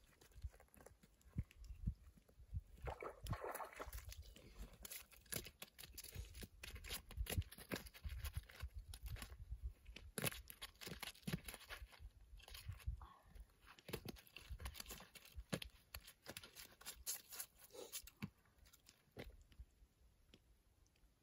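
Irregular crunching and crackling close to the microphone, many short sharp sounds all through, over a low rumble.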